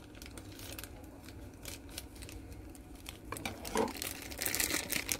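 Thin clear plastic bag crinkling and rustling as a small vinyl figure is unwrapped, with scattered small clicks; the crinkling grows louder and busier in the last second or so.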